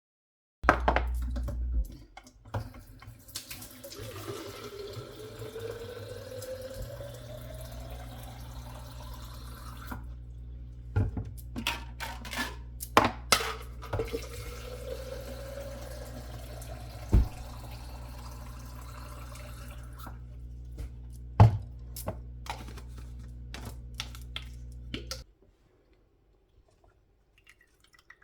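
Kitchen tap running into a container, the pitch rising as it fills, twice over, with a few knocks of the vessel or utensils against the sink. The running water stops abruptly near the end.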